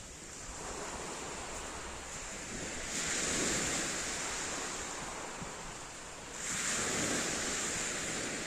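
Small waves breaking and washing over a pebble beach, the surf swelling twice, about three seconds in and again near the end.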